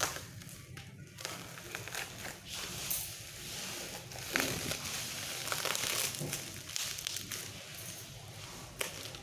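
Plastic packaging crinkling and crackling as it is handled and unwrapped, with many small irregular crackles.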